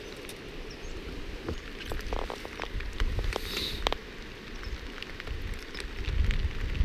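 Rain that has just begun falling, with many small sharp ticks of drops striking close by over a steady low rumble.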